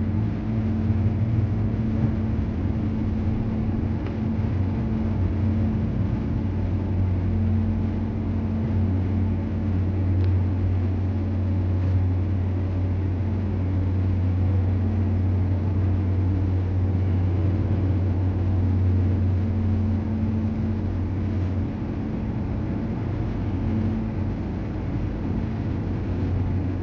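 Car ferry's engines running with a steady low drone, felt through the ship; the deepest part of the hum eases off near the end.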